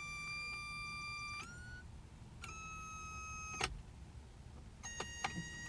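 Electric fuel pump whining as the ignition key is switched on and off, with relay clicks. The steady high whine stops about a second and a half in, runs again for about a second and ends in a sharp click, then starts once more with a couple of clicks near the end.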